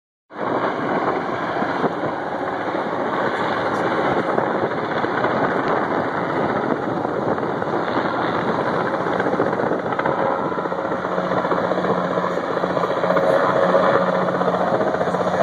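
Cargo helicopter hovering with a slung load on a long line: a loud, steady rotor beat over the running engines. A low steady hum joins about eleven seconds in.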